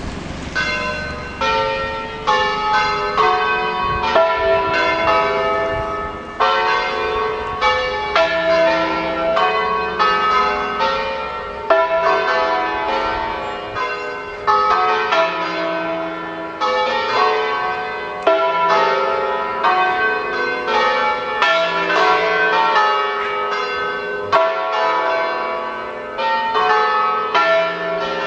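A peal of five Ambrosian church bells tuned E3, F♯3, G♯3, A3 and B3, swung full circle in the belfry. From about half a second in they strike many times a second in a continuous, overlapping run of ringing notes.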